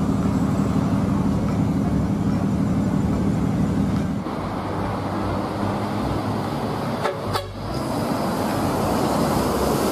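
Large intercity coach buses on the road, engine running with a horn sounding. The sound breaks off briefly about seven seconds in, then picks up again.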